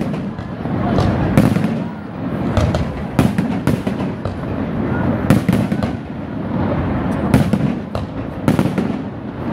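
Fireworks display: aerial shells bursting in a rapid, irregular run of sharp bangs, several a second, over a continuous low rumble.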